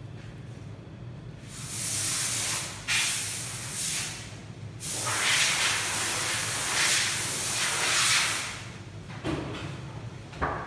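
Loud hissing in three long bursts over a steady low hum, followed by two short knocks near the end.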